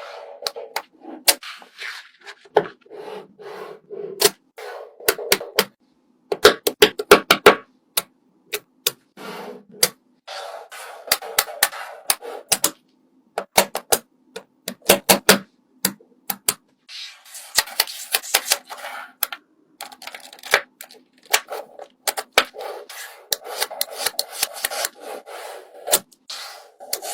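Hands working small craft materials at close range: quick runs of sharp clicks and taps, with stretches of rubbing and scraping in between.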